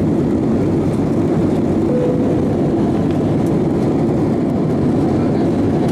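Steady roar of an Airbus A320's jet engines and airflow heard inside the cabin near the tail, with a short faint tone about two seconds in.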